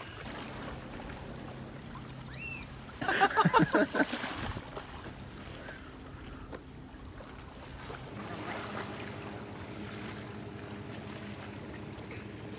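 Sea water moving against rocks with wind on the microphone and a steady low hum, broken about three seconds in by a loud, pitched shout or call lasting a little over a second.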